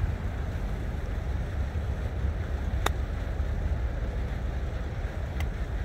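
Golf iron striking the ball in a full swing: one sharp click about three seconds in, over a steady rumble of wind on the microphone.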